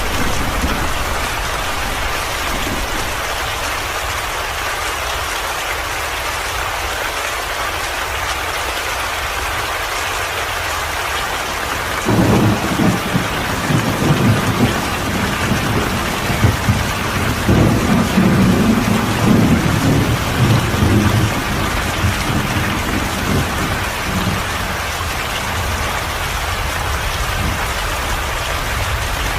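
Steady rain falling, with a long low roll of thunder that starts suddenly about twelve seconds in and rumbles for roughly nine seconds before dying away.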